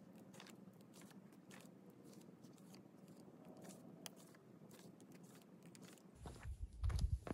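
Wooden ramrod compacting crumpled aluminium-foil wadding down inside a firework mortar tube: faint crunching and crinkling with many small clicks, then a louder low thump near the end.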